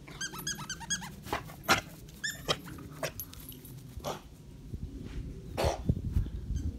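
A dog's squeaky toy squeaking in quick runs as a chocolate Labrador retriever mouths and noses it: a burst of rapid squeaks in the first second and another short run about two seconds in, with several short noisy bursts in between.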